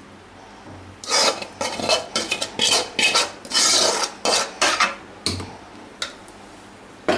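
A metal spoon scraping and clinking against a metal cooking pot, a quick run of scrapes for about four seconds starting about a second in, then one more scrape at the end, as fried chicken in a little gravy is spooned in.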